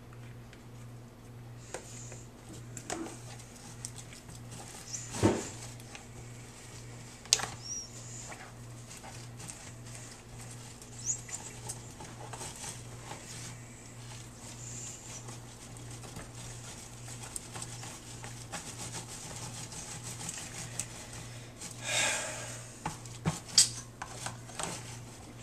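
Spatula stirring and scraping a thick bait paste in a plastic tub, with scattered knocks and clicks against the tub and a sharp thump about five seconds in. A low steady hum runs underneath.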